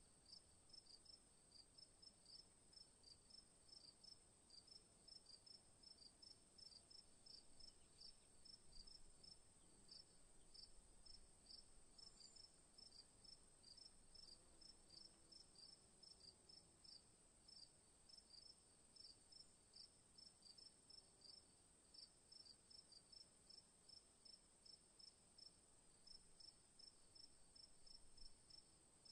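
Near silence, with faint cricket chirping: short chirps repeating evenly, over a steady faint high hiss.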